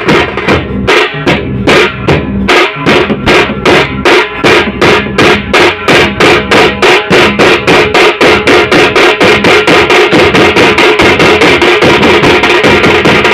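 A group of drummers beating large double-headed drums with sticks in unison, the beat speeding up steadily until it blurs into a fast roll near the end.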